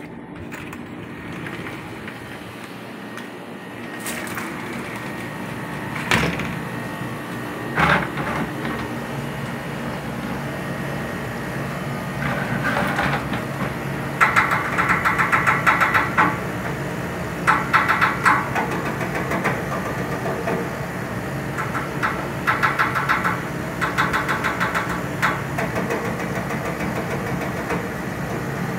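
Kolin air conditioner's outdoor condenser unit running, a steady hum from its compressor and fan. Two knocks come about six and eight seconds in, and a fast buzzing rattle comes and goes in short bursts through the second half.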